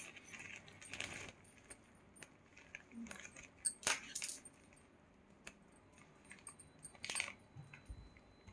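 Faint, scattered clicks and clinks of metal jewellery being handled off camera, with a few sharper clinks about four seconds in and again near seven seconds.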